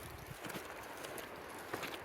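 Faint footsteps: a few light, scattered taps over a quiet background hiss.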